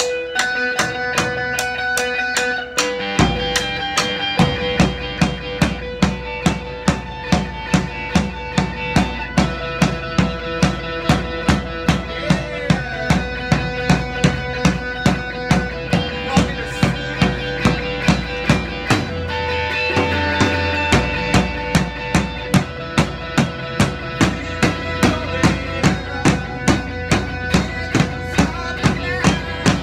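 Live rock song played on a drum kit and an electric guitar: a steady drum beat with kick and snare under held guitar notes. The heavier low end of the beat comes in about three seconds in.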